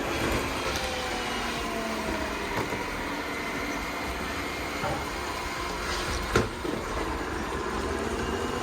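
Yeedi Vac robot vacuum running, a steady whir with tones that glide up and down as it drives and turns, and one sharp knock about six seconds in.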